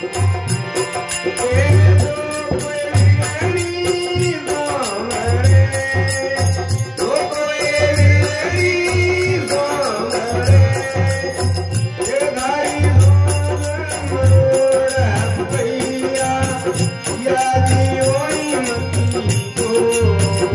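Live Indian folk song: men singing over a harmonium, with a dholak drum beating low strokes under the melody.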